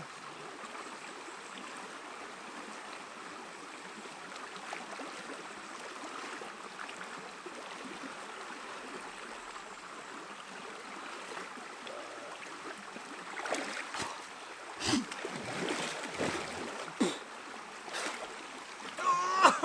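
Fast-flowing stream water rushing steadily. In the last several seconds, a series of sharp splashes and sloshes from a swimmer moving in the water.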